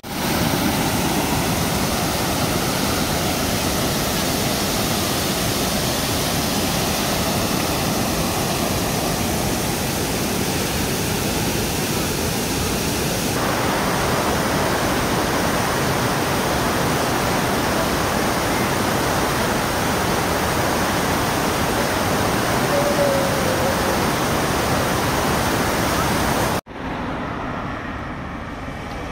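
Loud, steady rushing noise with no speech, its tone shifting slightly about halfway through. It cuts off abruptly near the end, leaving quieter street traffic.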